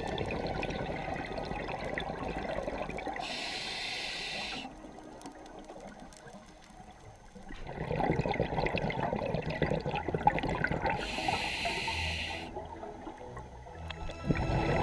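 Underwater sound of a scuba diver breathing through a regulator: a bubbling rumble of exhaled air, with two separate hisses of breath drawn through the regulator several seconds apart.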